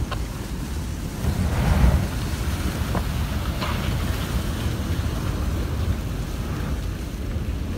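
Ice-class cargo ship's hull crushing and grinding through sea ice, a steady low rumble that swells louder about two seconds in, with a few faint cracks of ice, and wind buffeting the microphone.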